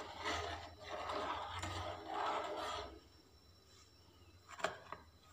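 Metal spoon stirring milk in an aluminium pot, rubbing and scraping against the pot in three strokes over the first three seconds, then a couple of light clicks near the end.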